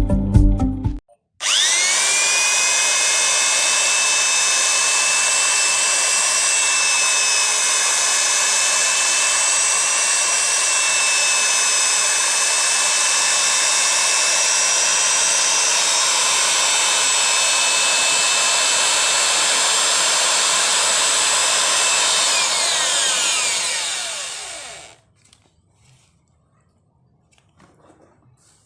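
A small electric motor spinning up about a second and a half in with a brief rising whine, running at a steady high whine, then winding down with a falling whine from about 22 s until it stops near 25 s.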